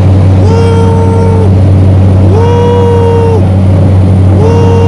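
Steady low drone of a small propeller plane's engine heard from inside the cabin. Over it, a steady tone sounds three times, each about a second long and about two seconds apart.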